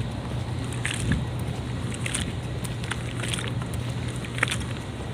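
Steady low machinery hum with a few short, sharp clicks and knocks scattered through it.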